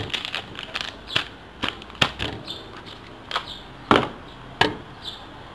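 Plastic packaging crackling as it is peeled off a block of egg tofu, with several sharp taps and knocks on a wooden cutting board.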